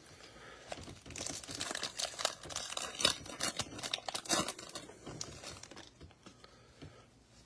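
A Panini Prizm basketball card pack being torn open by hand, its plastic wrapper crinkling and crackling. The crackling starts about a second in and dies away a little before the end.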